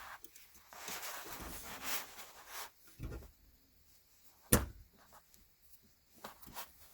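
Quiet hand-work noises on a car gear-shifter mechanism as a fitting is locked down: light rubbing and small ticks, with one sharp metallic click about four and a half seconds in.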